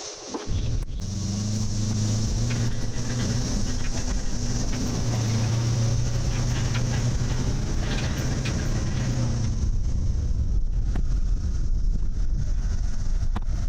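A motor running steadily, cutting in abruptly about half a second in.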